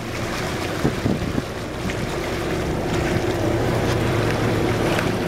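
Boat under way: a steady engine hum beneath the rush of the wake churning behind the stern, with wind buffeting the microphone.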